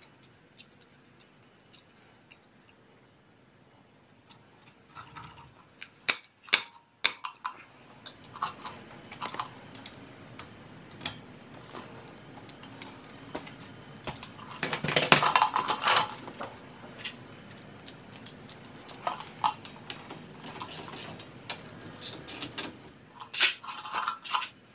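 Breaker bar and socket clinking and clicking against the Porsche Macan's front brake caliper bolts as the bolts are broken loose. Sharp clicks come about six to seven seconds in, with a denser run of clicking around fifteen seconds in.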